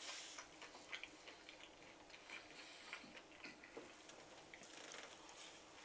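Faint eating sounds: a mouthful of rice being chewed, with soft scattered mouth clicks.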